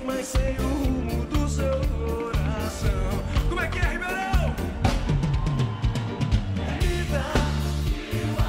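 Live band music with a sung lead vocal over a pulsing bass line and drums.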